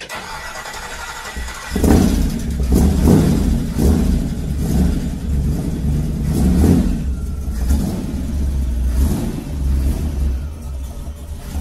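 Chevy 350 small-block V8 cold start: the starter, held loose by the wrong bolts, cranks with a whine for under two seconds, then the engine catches and runs, revving up and down unevenly.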